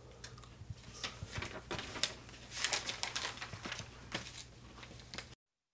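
Faint fabric rustling and scattered light clicks as a jacket is picked up off the arm of a couch, over a low steady hum. The sound cuts off to dead silence near the end.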